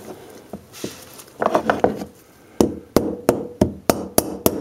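Small hammer tapping the seal retaining ring down into the bore of a 1978 Kawasaki KZ650 brake caliper, seating the ring that holds the seal in. A few scattered knocks come first, then from about halfway through a steady run of light, sharp taps, about three a second.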